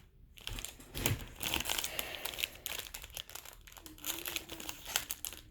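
Crinkling and rustling of a trading-card pack wrapper being handled, with small irregular crackles and card-handling clicks.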